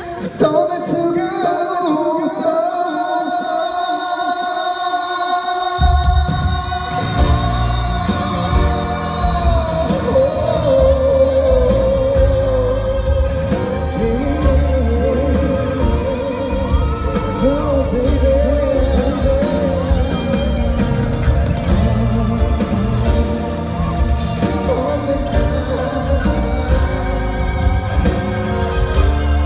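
Live pop concert music with singing: held, wavering notes over a high shimmer, then about six seconds in a heavy drum and bass beat comes in and carries on.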